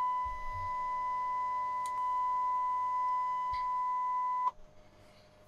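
Steady high-pitched test tone from an audio signal generator, played through the Hacker Sovereign RP18 radio's amplifier board and speaker, with faint overtones. It cuts off suddenly with a click about four and a half seconds in. A couple of soft thumps are heard in the first second and again near the end of the tone.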